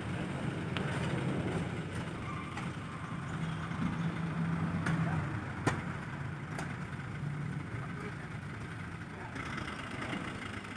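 Light dump truck's diesel engine idling with a steady low hum, with a few sharp clicks over it.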